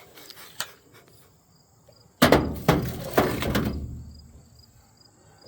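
Metal tools and parts clattering in a steel truck toolbox: a sudden loud clatter about two seconds in, with a few sharp knocks, dying away over a second or two.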